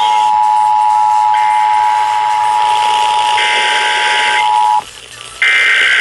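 The Emergency Alert System's two-tone attention signal playing as a steady, harsh dual tone over a radio and cutting off just under five seconds in, which marks the start of the EAS test message. Over it, from a second receiver relaying the test a little later, come the screechy data bursts of a SAME header, each about a second long, with about a second between them.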